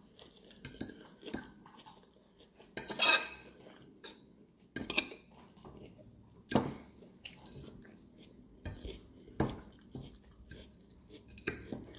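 Metal fork clinking and scraping against a dish while eating salad: irregular sharp clinks every second or two, with a longer, louder scrape about three seconds in.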